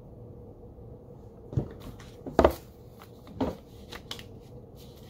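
Tarot cards and a small paper guidebook handled on a wooden table: three soft knocks about a second apart as the deck is set down and the booklet taken up, then lighter ticks as its pages are turned.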